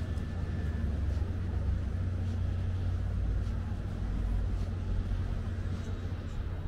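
Outdoor street ambience dominated by a steady low engine hum, with faint scattered ticks and background noise.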